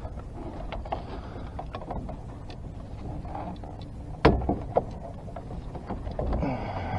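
Steady low rumble aboard a small bowfishing boat, with scattered light clicks of gear and one sharp knock a little past the middle, followed by a smaller one.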